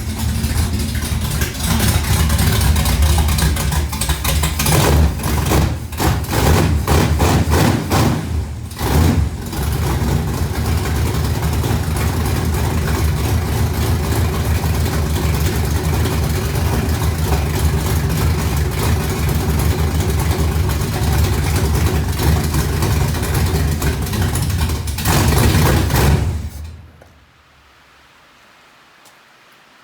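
Freshly built Chevrolet 350 small-block V8 with a healthy flat-tappet cam running just after a cold start, its speed surging up and down in the first ten seconds before settling into a steady idle. It shuts off about 26 seconds in.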